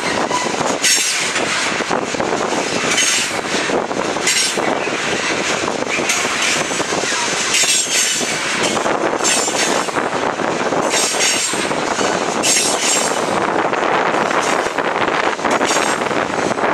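Railroad tank cars of a freight train rolling past close by: steady wheel-on-rail noise with clicks of wheels over the rail joints. A high squeal comes and goes every second or two.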